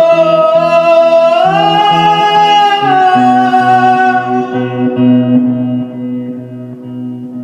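A blues song with acoustic guitar. One long held high note slides up, holds, then falls away and fades, over plucked guitar bass notes that go on steadily.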